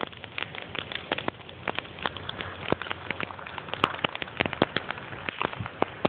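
Bonfire of rotted scrap logs crackling: dense, irregular sharp pops and snaps over a steady hiss of burning wood.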